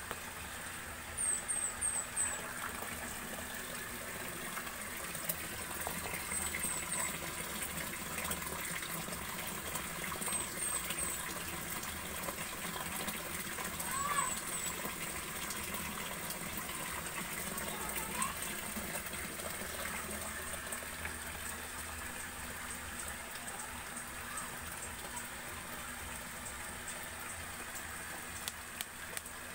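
Steady rush of water running into a concrete fry tank, with groups of three or four quick high chirps every four seconds or so in the first half.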